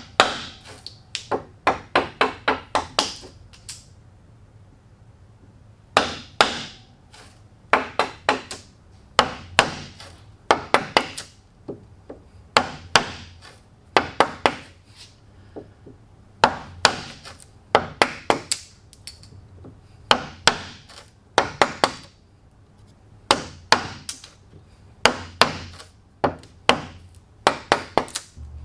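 Repeated striking blows on wood from hand tools, coming in bursts of several quick strikes with short pauses between them.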